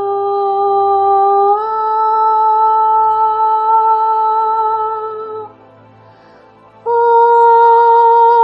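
A woman's voice toning long wordless held notes as channeled sound. The note steps up in pitch about a second and a half in and holds, breaks off for about a second, then a slightly higher note begins near the end.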